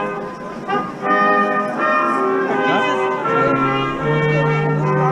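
Brass music, trumpets and trombones playing held chords, with a low bass note coming in a little past the middle.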